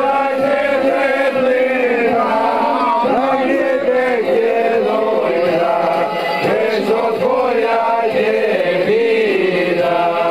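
A group of men singing together in chorus, a slow, chant-like song with long held notes.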